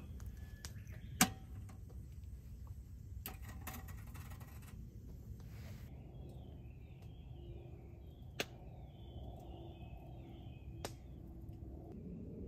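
Steel wood-stove door latching shut with a sharp metallic clack about a second in. After it the wood fire burns with a low steady rumble, and a few small ticks and two sharp snaps follow.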